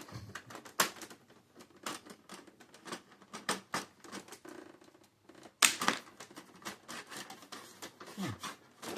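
Irregular clicking and clattering of plastic and metal printer parts being handled and worked loose during disassembly, with two sharper knocks, one about a second in and one a little past the middle.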